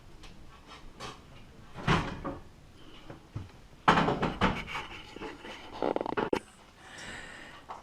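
Scattered knocks, clicks and clatter of objects being handled on a hard surface. The louder clusters come about two seconds in and again about four seconds in.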